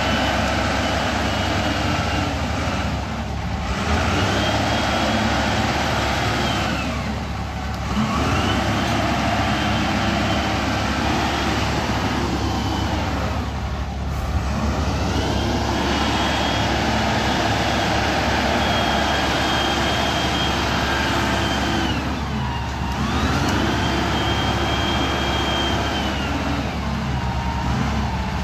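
Case wheel loader's diesel engine running at high revs while loading. Its pitch dips and climbs back about five times as the machine works.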